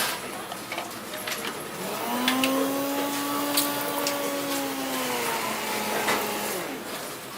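A small electric kitchen appliance motor spins up about two seconds in, runs with a steady hum for about three seconds, then winds down, over background kitchen clatter with sharp clicks and knocks.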